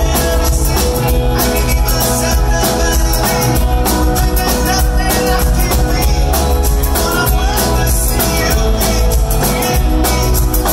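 Live pop-rock band playing over a PA: drums keeping a steady beat under electric guitars, bass and keyboards, with a lead singer.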